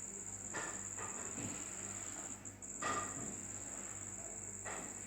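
A cricket trilling in one continuous high-pitched tone that breaks off briefly about halfway through, over a low steady electrical hum. Three faint clicks come about two seconds apart.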